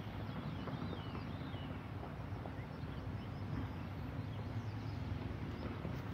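Outdoor ambience: a steady low rumble with a few faint bird chirps.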